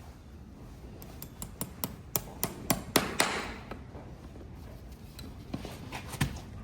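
Farrier's driving hammer knocking horseshoe nails through a shoe into the hoof wall: a quick run of about ten sharp strikes, about four a second, then a few lighter taps near the end.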